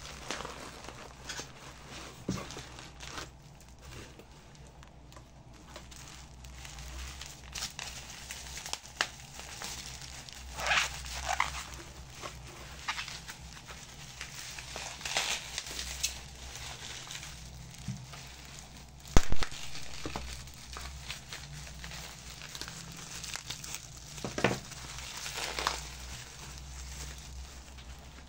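Rustling and crinkling of packaging being handled, with scattered light knocks and clicks and one sharp knock about two-thirds of the way through.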